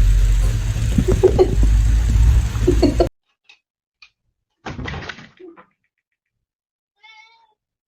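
Domestic cat sounds across a few quick clips: a loud stretch with a heavy low rumble and cat cries through the first three seconds that cuts off suddenly, a short noisy burst near five seconds, and one brief meow about seven seconds in.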